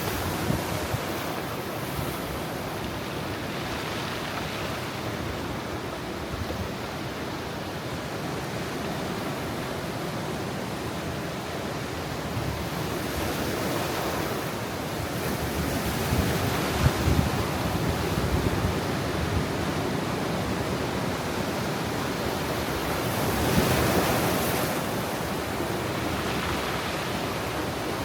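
Ocean surf at high tide washing and breaking on a rocky shore, a continuous wash of water that swells louder about halfway through and again near the end.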